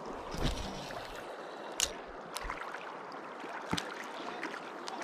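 Gentle river water lapping and trickling at a gravel shore, with a dull handling thump about half a second in and a few sharp, scattered clicks.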